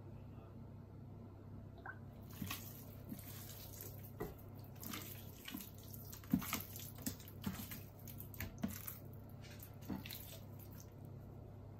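A hand squishing and rubbing raw chicken breasts coated in olive oil and spices on a plate, making irregular wet squelches that start about two seconds in. A faint steady low hum runs underneath.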